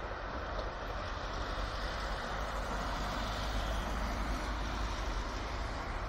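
Steady running rumble of a yellow local electric train moving away into the distance, with no distinct clicks or horn.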